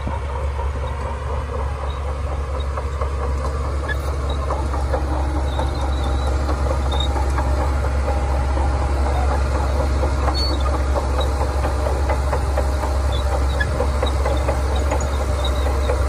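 Heavy diesel earthmoving machinery running steadily: a deep, constant engine drone overlaid with a continuous light metallic rattle, slowly getting louder.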